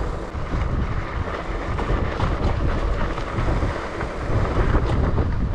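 Strong gusting wind buffeting the microphone: a heavy low rumble that swells and drops irregularly.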